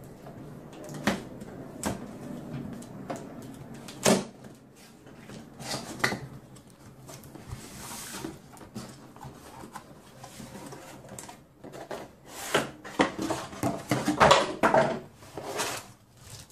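Cardboard laptop box being opened by hand: scattered knocks and taps on the box, with flaps scraping and rustling. The handling grows dense and loudest in the last few seconds.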